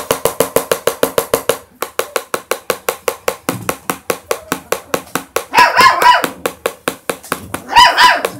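Saint Bernard puppies yelping: two loud, high, wavering yelps, the second near the end. Under them runs background music with a fast, even beat.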